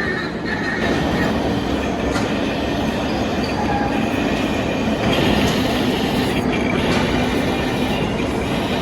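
Metal lathe running and cutting metal: a steady, loud grinding machine noise with a faint high squeal of tool on workpiece.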